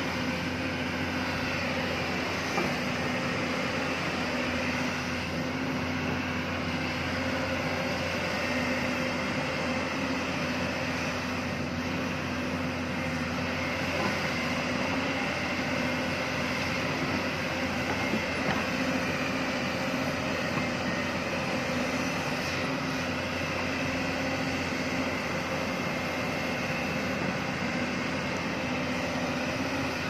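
Hyundai crawler excavator's diesel engine running steadily with a constant hum while the machine digs and swings its arm and bucket.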